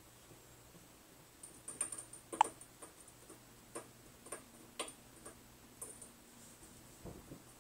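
Irregular light clicks and taps, about a dozen, from a cat pawing around while lying on its back on a wooden parquet floor under a metal-legged chair; they cluster and are loudest a couple of seconds in. A soft low thump near the end.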